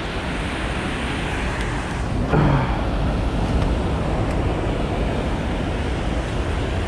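Steady rushing noise with no rhythm or pitch, and a brief voice sound about two seconds in.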